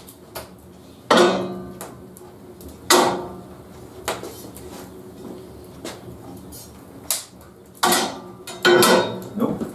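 Metal parts knocking and clanking in about half a dozen irregular strikes, some leaving a short ring, as a fence rail is fitted along the edge of a JET JWBS-18Q bandsaw's table.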